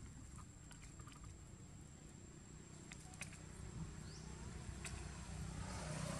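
Faint outdoor ambience: a steady high-pitched insect drone over a low rumble, with scattered light taps and scratches. A short rush of noise comes near the end.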